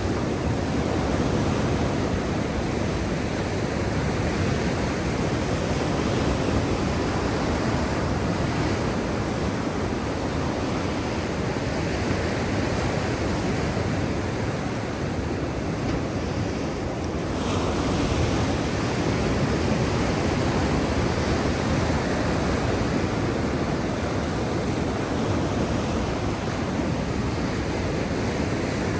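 Black Sea surf: waves breaking and washing in as a continuous rushing noise that swells and eases.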